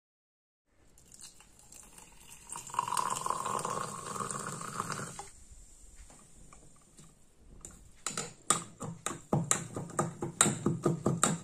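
Liquid poured into a glass over crushed popping candy, a steady pour lasting about three seconds. Then a metal spoon stirring and clinking against the glass, several clinks a second near the end.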